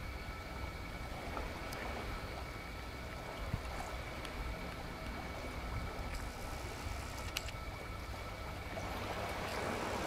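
Steady seaside ambience: a low rumble and soft hiss, with a thin steady high tone and a few faint clicks.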